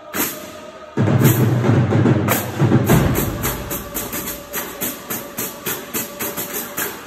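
Marching band drumline playing crash cymbals and drums. A couple of seconds of heavy drumming, then short cymbal crashes on a steady beat, about three a second.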